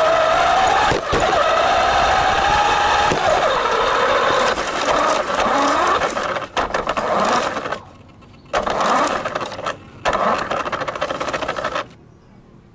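Small electric motor and gears of a remote-control toy car whining as it drives, the pitch rising and falling with its speed. It cuts out twice briefly, then stops near the end.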